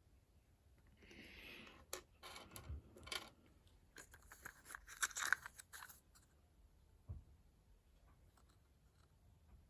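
Handling noise of small objects being picked up and turned over: a brief rustle, then a run of small clicks and scrapes, loudest about five seconds in, and one soft knock later on.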